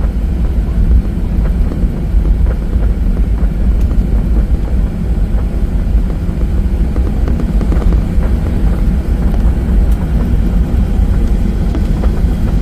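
Loud, steady low rumble inside a jet airliner's cabin as the plane moves on the ground or rolls for takeoff: engine and runway noise.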